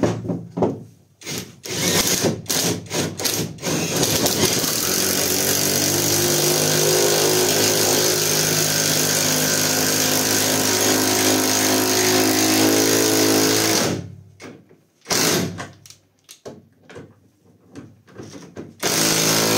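Catpower 4226 cordless impact wrench driving a screw into hard wood. It starts with a few short trigger pulses, then runs for about ten seconds, stops sharply, and gives more short bursts near the end. The screw head ends up stripped, the operator thinks.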